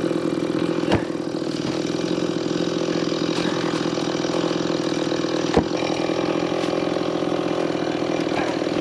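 An engine running steadily at an even speed, with two sharp knocks, one about a second in and one past the middle.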